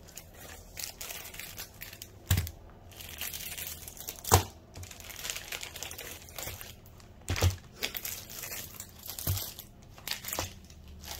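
Plastic bags and paper packets crinkling as they are handled and lifted out of a cardboard box, with four sharp knocks a couple of seconds apart as items are set down on the table.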